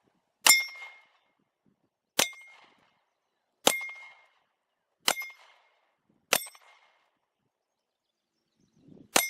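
Hanging steel target plates struck six times, each strike a sharp metallic clang that rings briefly. The first five come about every one and a half seconds, and the last comes near the end after a short gap.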